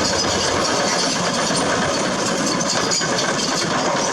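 Bulldozer sound effect: a heavy engine running steadily.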